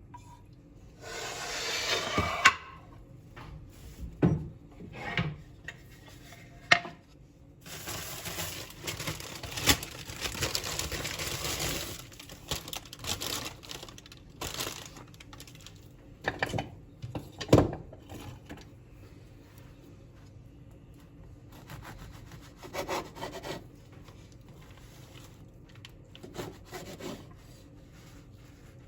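Kitchen prep on a wooden board: stretches of scraping and rubbing, with sharp knocks between them.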